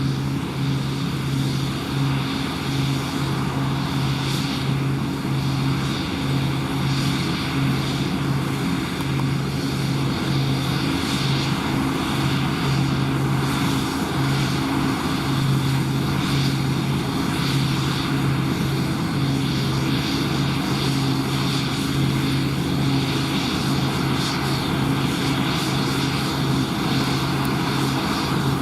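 New Holland combine harvester running steadily while cutting: a constant drone of diesel engine and threshing machinery, with a strong, even low hum.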